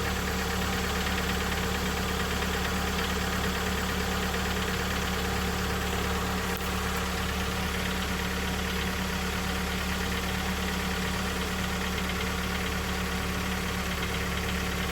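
Mitsubishi 4B1-series engine in a Lancer X idling cold with a steady diesel-like knock from the left side of the engine. The knock comes from play in the exhaust cam phaser, whose keyway seat on the camshaft has worn.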